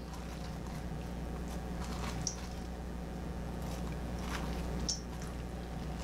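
Hand scraping the seeds and stringy pulp out of a halved pie pumpkin, with a few soft wet squelches and clicks over a steady low hum.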